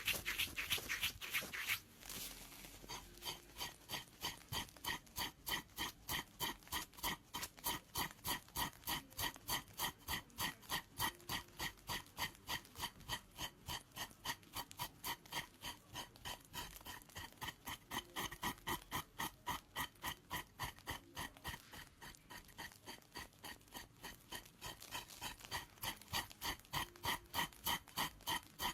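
A pedicure blade scraping dead skin from a foot with athlete's foot, in short, regular strokes about three a second. The strokes are quicker and louder for the first couple of seconds.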